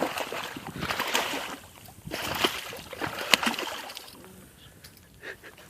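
Water splashing and sloshing with sharp knocks as a freshly landed muskie thrashes beside the boat, dying away after about four seconds.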